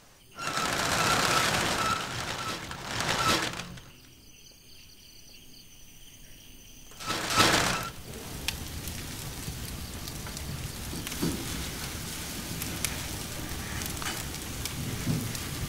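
Cremation fire crackling and hissing steadily, with many scattered sharp pops. Before it, two loud rushing noises: one lasting about three seconds at the start and a shorter one just before the crackling begins.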